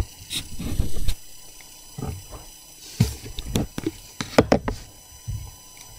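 Scattered sharp clicks and knocks with short bursts of low rumble: equipment being handled close to the microphone, with a cluster of clicks in the second half.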